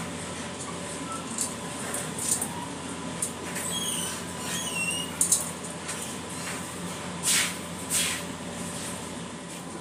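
A spatula squeaking and scraping against a stainless-steel mixing bowl as thick cookie dough is stirred, with two louder scrapes near the end. A steady hum of kitchen ventilation runs underneath.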